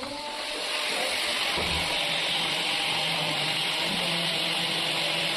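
Electric drill running steadily under load, boring into marble for a handle lock; the grinding sound builds up over about the first second, then holds even.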